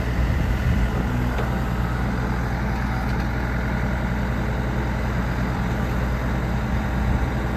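JCB 214 backhoe loader's four-cylinder turbo diesel engine running at a steady speed, with a steady low hum.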